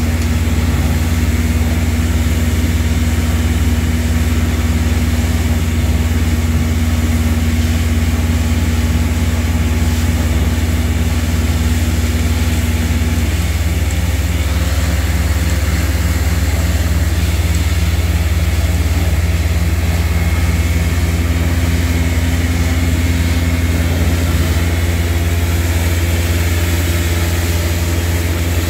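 Western Star vacuum truck's Weichai diesel engine running steadily, a constant low drone that holds at the same level throughout, as it powers the vacuum excavation.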